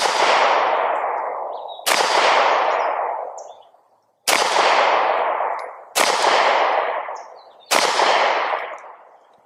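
Five shots from a Sig Sauer P365 X Macro 9mm pistol, fired slowly, roughly two seconds apart. Each shot leaves an echo that dies away over a second or more.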